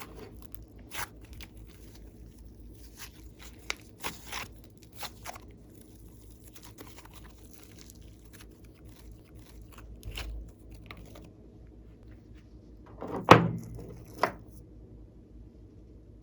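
Glossy slime being handled and mixed: scattered small sticky clicks and crackles. A louder thunk comes about 13 seconds in and a smaller one a second later.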